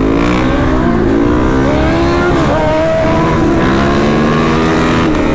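Supermoto motorcycle engine under way, revving up and easing off: the pitch climbs, drops about halfway through, then climbs again.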